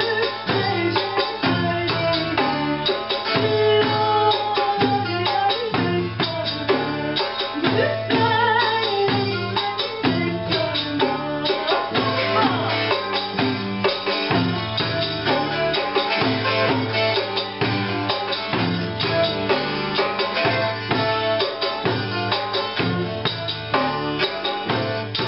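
Live Cypriot folk song: darbuka and tambourine keep a steady dance beat under a plucked mandolin-type lute and electric bass, with a woman singing.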